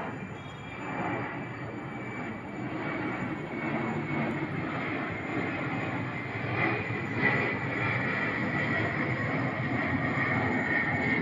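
Airplane engines at take-off power: a steady roar with a high whine that grows stronger in the second half.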